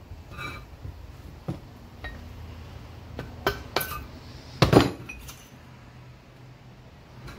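A mallet knocking on the housing of a Ford 6.0 Powerstroke's Garrett VGT turbo to work its parts apart, with metallic clinks of loose turbo parts. It gives about seven sharp, irregular knocks, the loudest a double knock a little past the middle.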